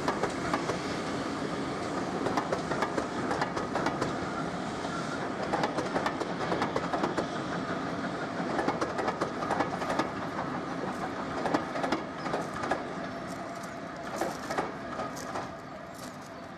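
Passenger coaches of a steam-hauled train rolling past, their wheels clicking over the rail joints in a steady clatter. The sound grows a little fainter near the end as the train draws away.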